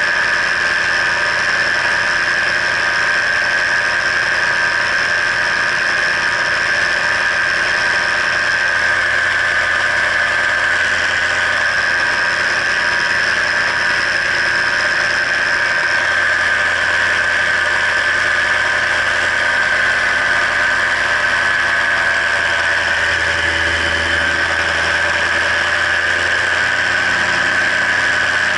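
Paramotor engine and propeller running steadily in flight, a constant high whine over the engine drone.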